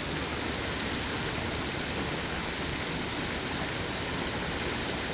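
Steady rush of flowing creek water, an even, unchanging hiss.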